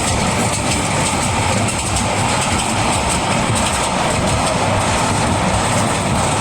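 A train running, a steady, even noise.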